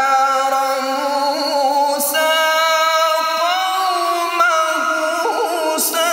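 A male qari reciting the Qur'an unaccompanied in the melodic tilawah (mujawwad) style, drawing out one long, wavering, ornamented note that shifts up in pitch around the middle.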